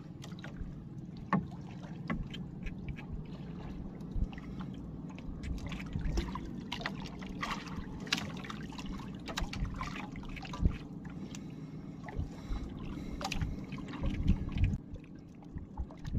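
Water lapping against a small wooden fishing boat (bangka) rocking on the sea, with a steady low wash and scattered knocks and clicks on the hull.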